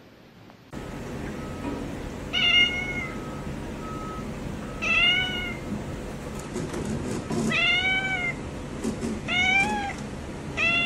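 A domestic cat meowing five times. Each meow is a drawn-out call whose pitch bends up and then down.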